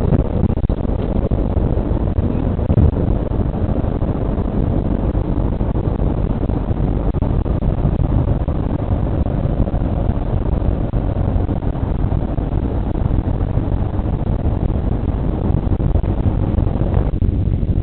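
Steady road and engine noise of a moving Ford car, heard from inside the cabin. Near the end the higher hiss drops away, leaving the low rumble.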